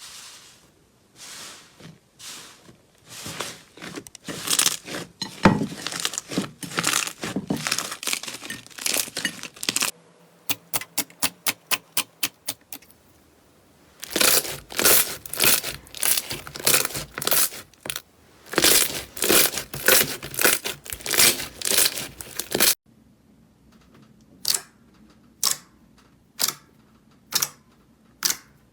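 Crunchy slime being squeezed and poked by hand, crackling and popping in dense bursts. Between the bursts come stretches of sharp single clicks, about three a second in one stretch and about one a second near the end, with abrupt cuts between clips.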